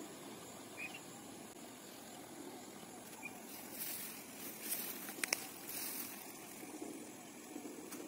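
Quiet outdoor ambience: a steady hiss with a couple of faint, short bird chirps, and a stretch of rustling with two sharp clicks a little past the middle.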